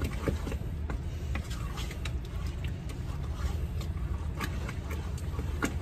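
Spoon stirring a thick apple butter mixture in a stainless steel stockpot, with scattered scrapes and light knocks against the pot, over a steady low hum.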